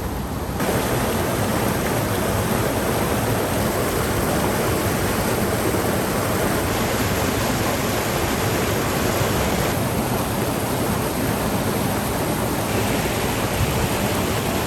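Waterfall cascading over rocky steps: a steady, full rush of falling water, louder from about half a second in.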